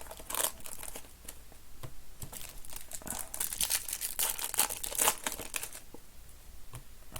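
Trading card pack wrappers crinkling and tearing as packs are opened, in irregular crackles.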